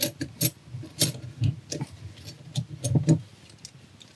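A turbocharger's exhaust housing is turned by hand against its centre section while clocking the turbo, making irregular metal clicks, scrapes and knocks. The clicks are strongest near the start and again about three seconds in. The housing turns freely because it is loose.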